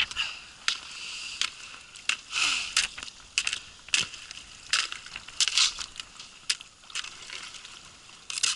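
Ice being broken up: a run of irregular sharp knocks, each followed by high crackling and crunching as the ice cracks and shards break off.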